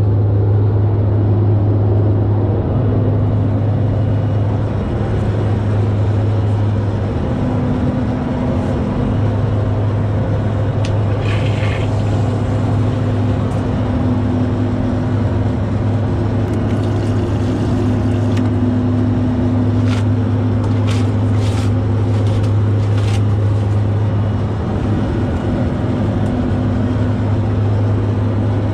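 Steady low drone of an airplane cabin in flight, with a constant hum and a few short clicks and knocks around the middle.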